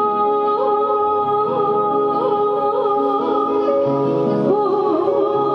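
Live Dogri song: a woman singing slow, wavering ornamented notes over a harmonium's steady held notes.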